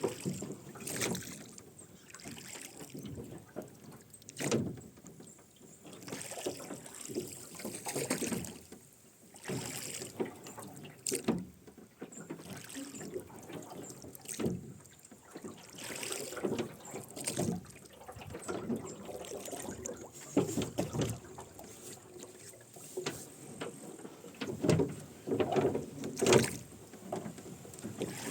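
Rowing a boat: the oarlocks creak and the oars splash and drip with each stroke, a stroke every couple of seconds.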